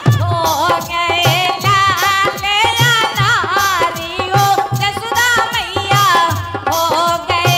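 Kartik folk song: a woman singing the melody, accompanied by a hand drum beating a steady rhythm about twice a second.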